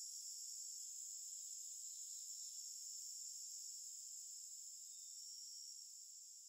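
Faint night chorus of crickets: a steady high-pitched trill that slowly fades toward the end.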